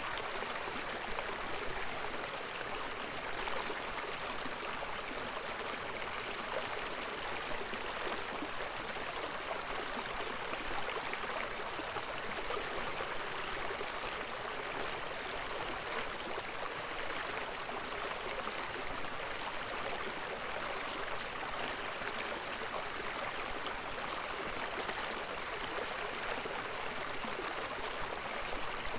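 River water flowing, a steady rushing hiss with no breaks.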